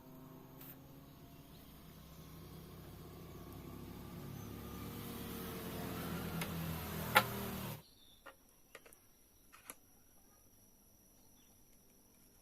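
A motor vehicle's engine hum growing steadily louder, with a sharp click shortly before it cuts off suddenly, followed by a few faint clicks and taps.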